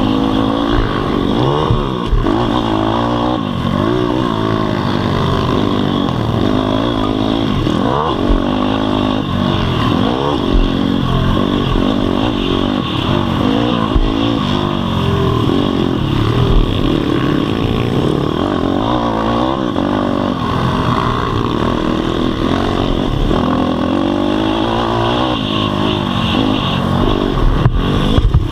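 Pit bike engine at race pace, heard close up onboard: the revs climb and fall over and over as the rider works the throttle and gears.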